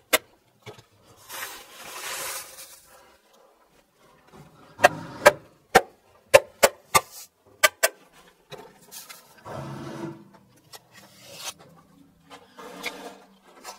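Hammer stapler tacking building paper up, a series of sharp snaps, about eight in three seconds near the middle and two at the start, with the paper crinkling as it is unrolled and pressed flat between them.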